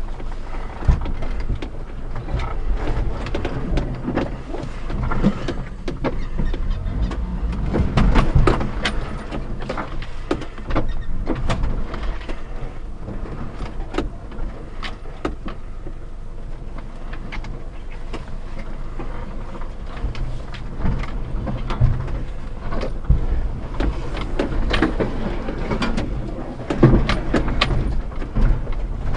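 A 1992 Daihatsu Hijet Climber mini-truck's 660cc carbureted three-cylinder engine running at low speed while crawling over a rocky trail, with the cab and body rattling and knocking many times as the truck lurches over the rocks.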